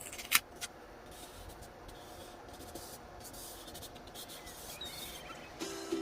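Paper being handled during diary decorating: a sharp click, then soft rubbing and rustling strokes. Music starts near the end.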